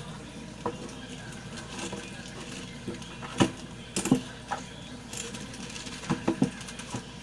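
Scattered small clicks and taps of small hard parts and tools being handled and set down on a bench. The loudest knocks come about three and a half and four seconds in, with a quick run of three taps a little after six seconds.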